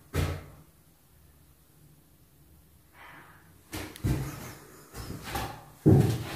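Footsteps thudding on the floor: one step, a pause of about three seconds, then several more steps at a walking pace.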